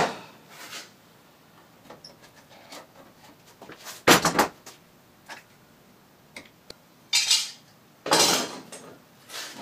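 Steel clamps being loosened and pulled off a tack-welded steel frame, clanking against the metal: a few sharp clatters, the loudest about four seconds in, about seven seconds in and just after eight seconds.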